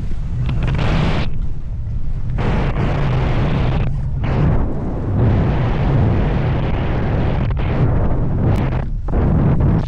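Rushing wind buffeting the camera microphone during wingsuit flight: a loud, steady low rumble with a hiss above it that swells and drops away every second or two.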